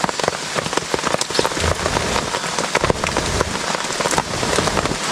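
Steady heavy rain falling on a tarp shelter, a dense patter of many sharp drop hits.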